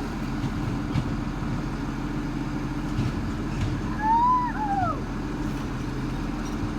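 Recycling truck's engine running steadily at idle. About four seconds in, a brief high call rises and falls over it.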